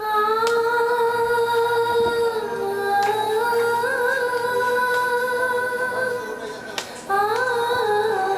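Background music: a slow vocal melody of long held, gently wavering notes over a faint steady low drone.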